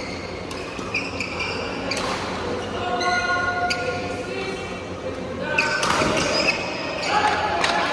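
Badminton court sounds echoing in a large hall: sneakers squeaking on the court floor and sharp knocks of rackets hitting a shuttlecock, busiest about six seconds in.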